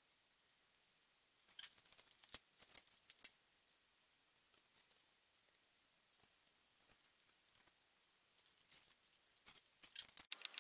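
Faint clicks and light scraping from a wooden stick working poured resin out of a small plastic cup and into letter recesses on a wooden board, in two short spells: one about a second and a half in and another near the end.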